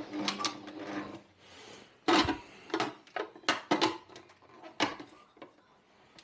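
Stand mixer's motor running as it kneads bread dough, switched off about a second in. Then a series of clicks and knocks as the mixer and its metal bowl are handled.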